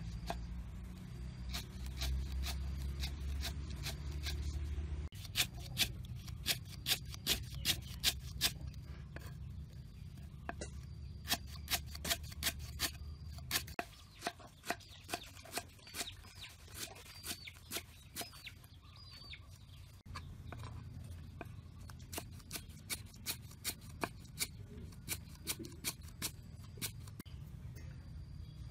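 Kitchen knife chopping on a round wooden chopping block: runs of sharp strikes, about two to three a second, over a low steady rumble.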